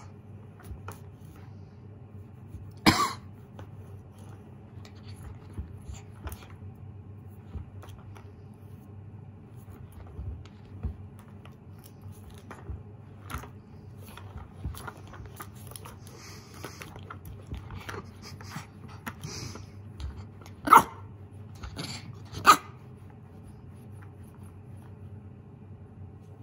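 Shiba Inu puppy giving three short, sharp barks: one about three seconds in, then two about a second and a half apart near the end. These are the wary warning barks of a puppy that is frightened of a lint roller yet threatening it. Faint scuffs and clicks of paws and the roller on a shaggy rug fill the gaps.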